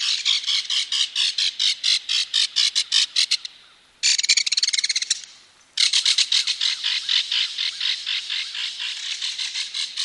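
Belted kingfisher giving its loud rattling call: rapid dry notes, about six a second, in three rattles broken by two short pauses, the middle rattle short and faster.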